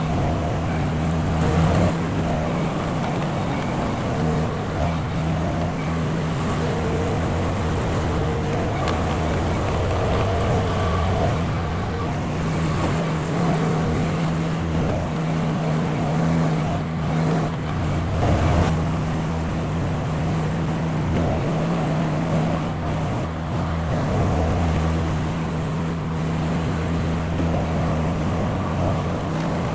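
Mini skid steer's engine running steadily at raised throttle while the loader works.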